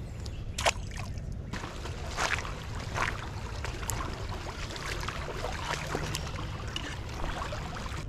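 Legs wading through a shallow creek, water sloshing and splashing irregularly with each step, starting about a second and a half in.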